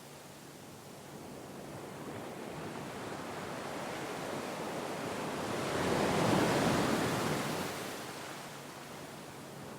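Sea waves washing ashore: the surf noise builds slowly to one swell about six seconds in, then falls away.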